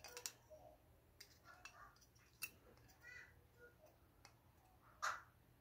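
Faint clicks and light metal knocks from a Toyota 3S-GTE piston and connecting rod being handled just after removal from the block. One louder knock comes about five seconds in.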